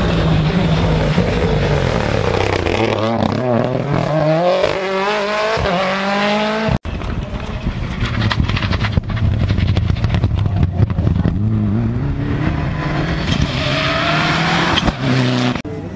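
Rally cars at full throttle on a tarmac stage: a Mini rally car's engine revving up through the gears in repeated rising sweeps, then, after a sudden cut about seven seconds in, a Mitsubishi Lancer Evolution's turbocharged four-cylinder running hard and revving up again near the end.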